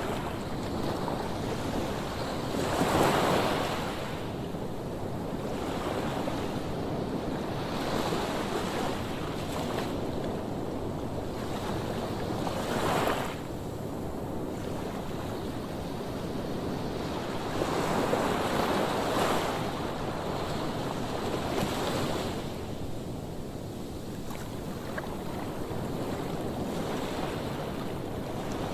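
Heavy surf breaking on a sandy beach: a steady wash of waves with louder crashes swelling in every few seconds, the biggest about three seconds in, around thirteen seconds and around eighteen seconds.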